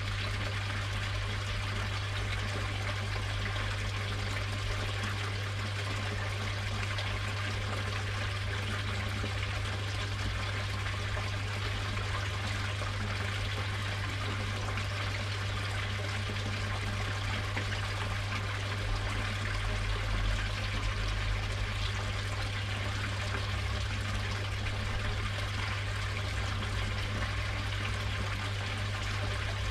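Steady trickling, running water of a koi pond, with a steady low hum underneath.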